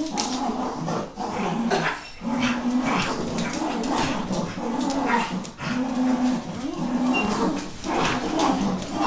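Dachshund growling in repeated drawn-out growls, each about half a second long, while it tugs and bites at a towel in play.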